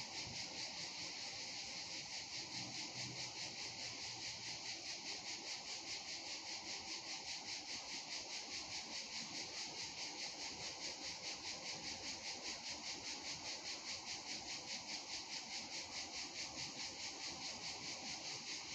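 A chorus of insects shrilling steadily in a rapid, even pulse of about four beats a second.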